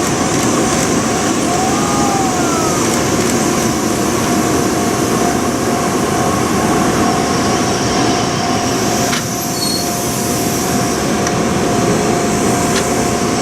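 N700S Shinkansen test train rolling past at close range, a steady rumble of wheels on rails with a sustained high tone over it.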